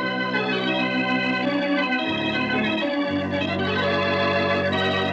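Organ music playing held chords; the bass notes drop out for about a second, two seconds in.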